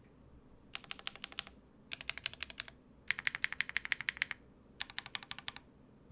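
Fast typing on a mechanical keyboard with HMX EMO linear switches, an aluminium plate, PBT keycaps and no foam. The keystrokes come in four quick runs with short pauses between them.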